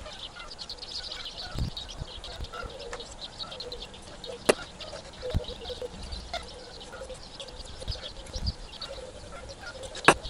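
Birds chirping and calling in a steady chorus, with two sharp clicks, one about four seconds in and one near the end.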